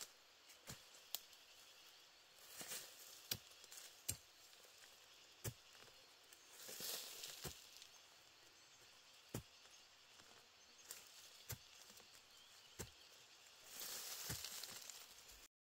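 Machete blade chopping into the soil and roots around a bamboo shoot: about a dozen faint, sharp chops spaced a second or so apart, with a few spells of dry bamboo leaves rustling in between.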